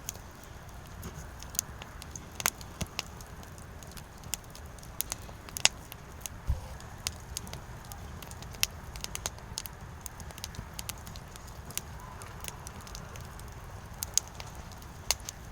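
Wood fire crackling, with irregular sharp pops from the burning logs over a steady low rumble; the loudest pops come about two and a half and almost six seconds in.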